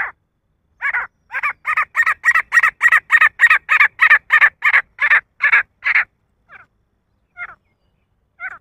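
Male grey francolin calling: a series of sharp, repeated notes that speeds up to about three a second and grows louder, then breaks off about six seconds in, followed by a few fainter, scattered notes.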